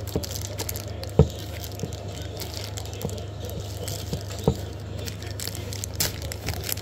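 Plastic wrapping crinkling and rustling as a ring light's tripod stand is unwrapped and handled, with scattered light knocks and two sharper ones, about a second in and past the middle, over a steady low hum.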